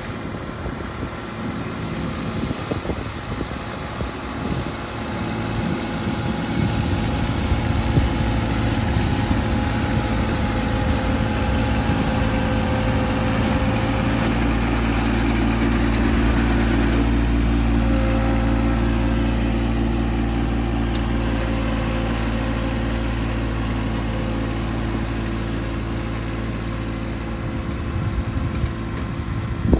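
John Deere garden tractor running steadily while its front-mounted rotary broom sweeps thatch out of the lawn. It grows louder as the tractor comes closest, about halfway through, then eases off.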